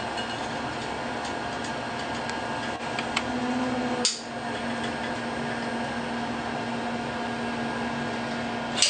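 Caulk gun squeezing out a bead of silicone, with a few sharp clicks of the trigger and plunger, the clearest about four seconds in and another near the end. Under it runs a steady room hum, joined by a low steady tone about three seconds in.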